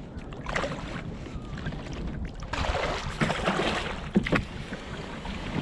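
Kayak paddle strokes dipping and swishing through shallow water, with a louder stretch of splashing in the middle, over wind buffeting the microphone.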